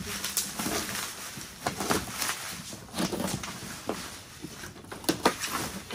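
Packaging being handled: a plastic bag and bubble wrap rustling and cardboard boxes shifting, with a few light knocks and clicks scattered through.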